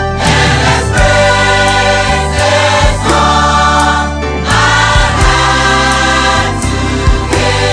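Church choir singing gospel music over a band with bass and drums keeping a steady beat.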